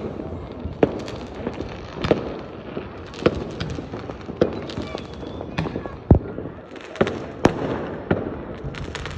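Fireworks going off: sharp bangs at irregular intervals, roughly one a second, over a steady background of more distant pops and crackle, with one deeper, heavier boom about two-thirds of the way through.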